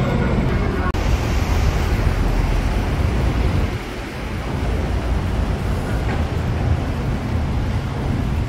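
Busy city street ambience: steady traffic noise with a low rumble of wind on the microphone. Music cuts off suddenly about a second in.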